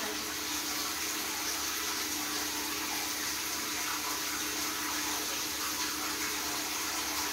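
Water running steadily into a tiled shower stall, with a faint steady hum under it.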